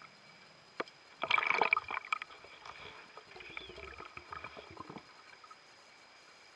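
Water sounds heard underwater: a sharp click, then about a second of loud crackling bubbles and gurgling, fading into softer bubbling and rustling.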